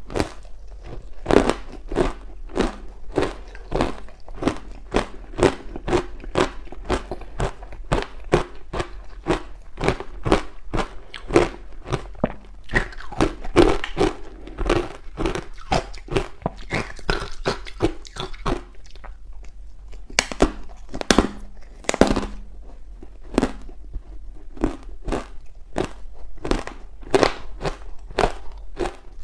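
Ice blocks coated in matcha powder being bitten and chewed: a steady run of sharp crunches, two or three a second.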